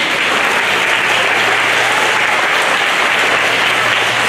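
Audience of seated children and adults applauding steadily.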